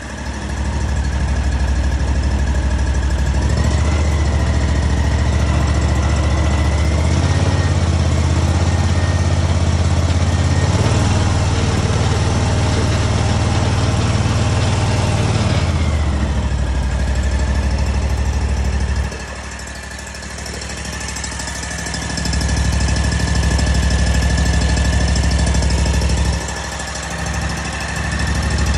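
Scag Patriot zero-turn mower engine being throttled up and down: it runs up about half a second in and holds high with a steady high whine over it, eases back around 16 seconds as the whine falls slightly in pitch, drops off sharply a few seconds later, then comes back up, with a brief dip near the end.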